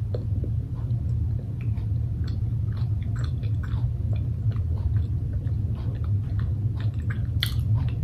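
A person chewing a soft mango mochi, with scattered small mouth clicks and smacks, one sharper click near the end, over a steady low hum.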